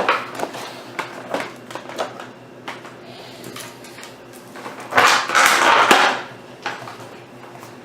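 Toy packaging being handled and cut open: scattered clicks and taps, with a loud rustle lasting about a second, about five seconds in.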